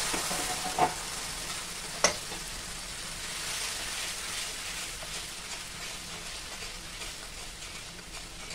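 A gram-flour (besan) and water slurry sizzling in hot oil in a steel pan while a steel spoon stirs it. The sizzle slowly dies down, and the spoon clinks sharply against the pan twice, about one and two seconds in.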